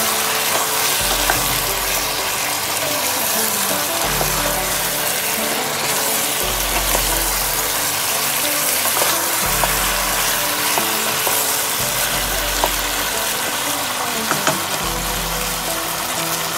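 Chicken pieces sizzling as they sauté in a pot, stirred with a wooden spoon that gives occasional light knocks against the pot. Background music with a repeating bass runs underneath.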